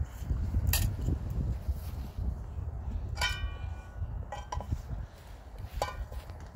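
Metal cookware being handled: a pot, lid and frying pan knocking and clinking, with one clear ringing clink about three seconds in and a few lighter knocks around it, over a low rumble.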